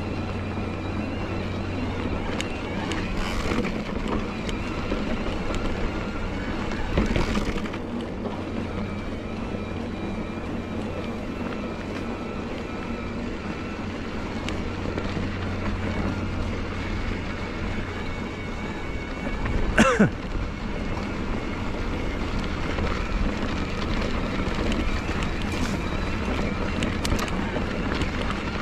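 Bosch Performance Line CX mid-drive motor of a Cannondale Moterra Neo e-mountain bike whining steadily as it assists a climb, with occasional knocks from the bike over the trail. About two-thirds of the way through comes a short, sharp squeak that falls quickly in pitch, the loudest sound.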